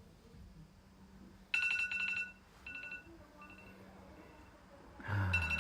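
Phone timer alarm ringing: a repeating electronic chime of two high tones that pulse in short bursts, starting about a second and a half in, marking the end of a five-minute breathing timer. A short low thump comes near the end.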